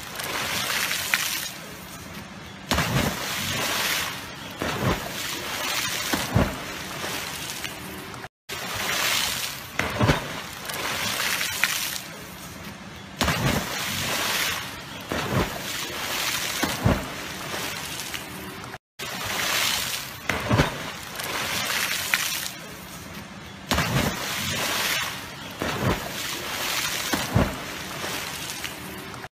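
A string of sudden water splashes a second or two apart as small animals leap one after another into a river, with water sloshing and churning in between. The sound drops out twice, briefly.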